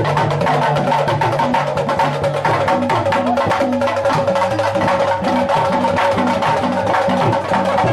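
Yoruba traditional drumming for a festival dance: drums playing a fast, dense rhythm of rapid strokes.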